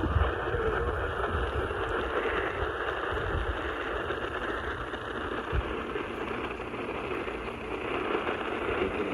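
Steady hiss of radio static from a weather radio receiver, with an uneven low rumble underneath.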